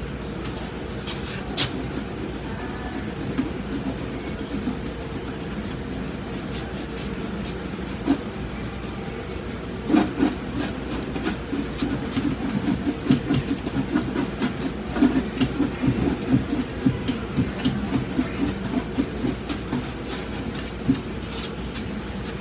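Paintbrush scrubbing and dabbing oil and cold wax paint into the nooks and crannies of a textured panel: a quick, uneven run of short brush strokes, several a second, from about ten seconds in until about twenty seconds in, over a steady low background hum.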